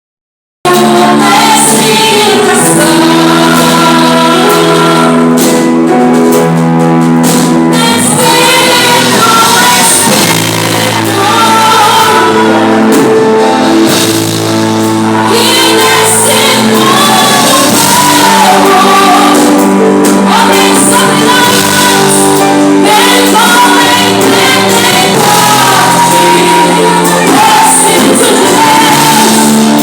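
Live gospel worship band playing with a group of singers, loud and sustained. The music cuts in abruptly about half a second in.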